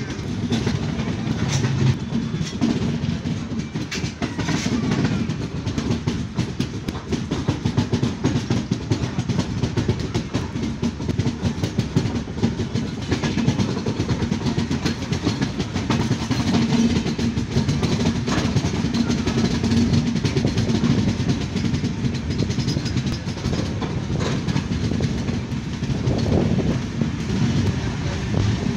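Passenger train of the 16346 Netravati Express running along the track, heard from an open coach door: a steady rumble of wheels on rail with rapid clickety-clack over the joints.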